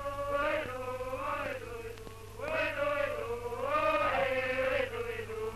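Voices chanting in long, wavering held notes, in a few phrases with a short break about two seconds in, over a steady low hum.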